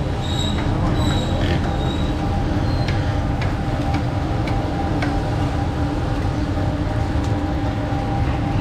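Steady rumble and hum of a roadside frying stall, with oil frying in a wide karahi and a few sharp clicks as eggs are cracked on a knife's edge.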